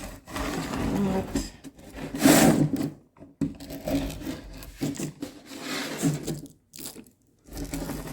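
Screen spline roller tool run back and forth along the spline, pressing it and the screen mesh into the frame's groove: a series of rubbing, rolling strokes with short pauses, the loudest about two seconds in.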